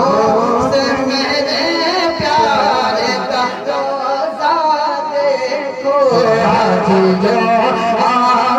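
A man singing a naat, Urdu devotional verse, in a continuous melodic line with a wavering, ornamented pitch.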